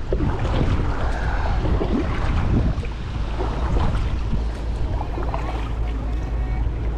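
Wind buffeting the microphone with a steady low rumble, over water lapping around a kayak and a few light knocks.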